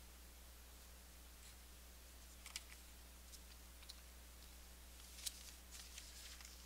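Near silence: the room tone of a large hall, with a steady low hum and a few faint, brief clicks and rustles, the loudest about two and a half and five seconds in.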